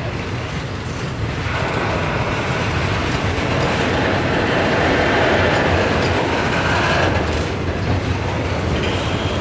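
Autorack freight cars of a passing train rolling by at close range: a steady rumble of steel wheels on the rails. It grows louder about a second and a half in, then eases off a little near the end.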